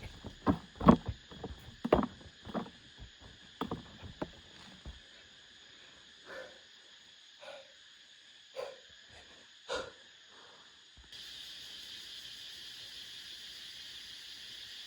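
A run of irregular knocks and thuds for the first five seconds, then four single knocks with a hollow ring about a second apart, the sounds of hand work on wood or earth, over a steady high insect drone. About eleven seconds in the knocking stops and a louder, even insect chirring takes over.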